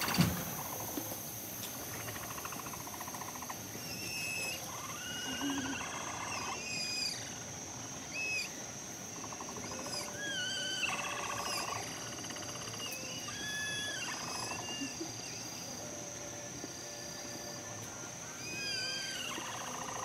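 A herd of capybaras calling together: many short, arching, whistle-like chirps that overlap and repeat, with now and then a longer, lower whining call of about a second.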